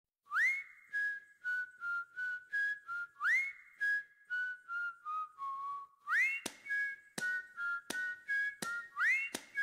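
Whistled tune in a music track: a short phrase that opens with an upward swoop and repeats about every three seconds. About six seconds in, a sharp clicking beat joins it.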